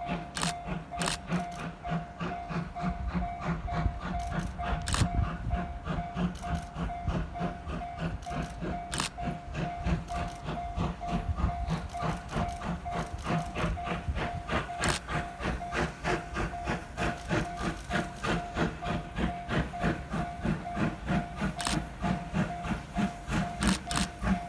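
Japanese level-crossing warning bell ringing in a steady beat of about two to three strokes a second, while the JNR Class D51 steam locomotive D51 498 passes with its train, giving a hiss of steam and occasional sharp knocks.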